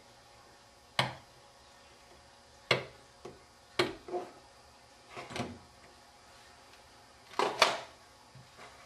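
A hobby knife tapping and scratching an alignment mark on a part on a cutting mat, heard as a handful of sharp, isolated clicks and taps a second or so apart; the loudest, a double clack near the end, comes as the knife is put down.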